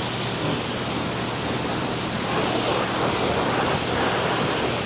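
Pressure washer spraying water over a car to rinse off mud and loose debris before washing: a loud, steady hiss of spray with a steady low hum underneath.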